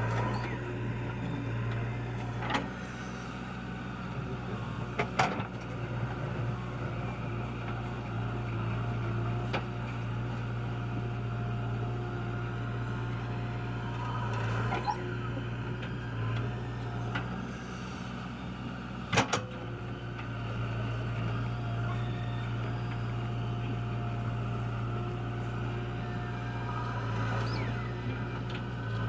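JCB 3DX backhoe loader's diesel engine running steadily as it digs and loads mud, with a sharp knock now and then, the loudest about two thirds of the way through.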